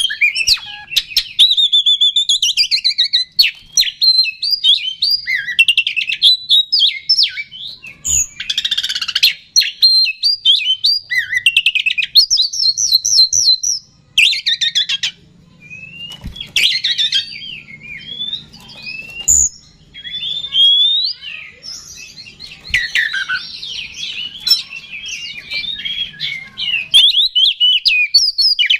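Oriental magpie-robin (kacer) in full, loud song: a fast, unbroken run of varied whistles, trills and chirps, with a short break about halfway. A few sharp knocks fall among the phrases.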